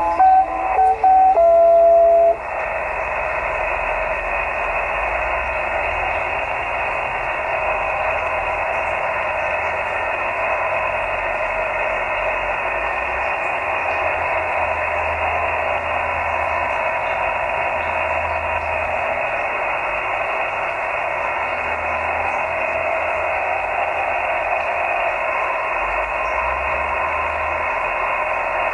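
Shortwave radio received on an Elecraft KX2 in lower sideband. The last notes of a tune of plain electronic tones end about two seconds in. After that only steady shortwave static is heard, a hiss through the receiver's narrow sideband filter with faint steady whistles in it, as the broadcast's programme audio has stopped.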